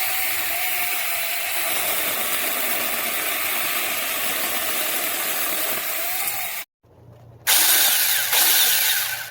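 Saker 6-inch cordless electric mini chainsaw running with a steady whine and chain noise. It cuts off abruptly about two-thirds of the way through, then starts again louder after a short gap.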